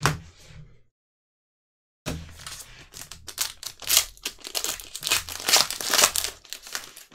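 Foil trading-card pack wrapper crinkling and tearing as gloved hands rip it open: a brief rustle at the start, then from about two seconds in a dense run of sharp crackles.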